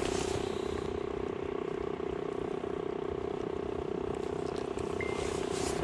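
Steady mechanical hum of a small motor running at a constant pitch, with faint ticking handling noise on top and a brief high beep about five seconds in.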